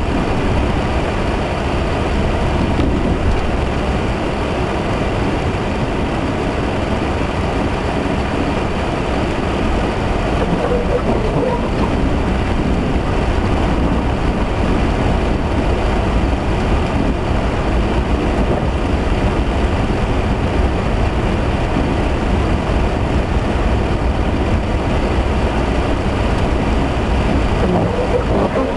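A vehicle driving slowly through a blizzard on a snowy road, heard from inside: a steady low rumble of engine, tyres and wind.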